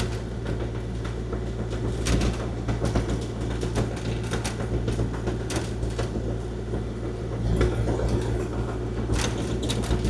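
Kubota KX040-4 mini excavator's diesel engine running steadily under load while plowing snow off a gravel driveway, with frequent irregular knocks and rattles.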